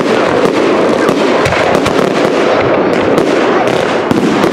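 Fireworks show finale: a dense, unbroken barrage of crackling and bangs, many reports a second, with a deeper thump about a second and a half in.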